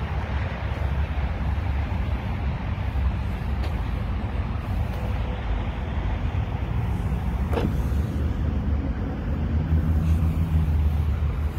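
Steady outdoor rumble of road traffic with wind on the microphone, growing a little louder near the end, and a single short click about two-thirds through.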